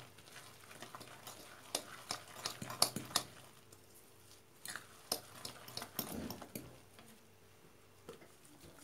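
A fork stirring egg and chopped greens in a bowl, with scattered irregular clinks and taps of the fork against the bowl.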